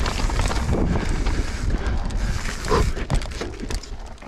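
Mountain bike rolling down a technical rocky trail: knobby tyres crunching over rock and dirt with the bike rattling in many small clicks, and wind rumbling on the microphone.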